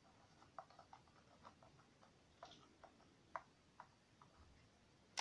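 Near silence with about a dozen faint, irregular small clicks from hand-work with a hot glue gun at a model ship's rigging.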